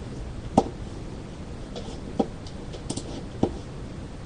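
Four short, sharp clicks, spread unevenly across a few seconds, over a steady background hiss.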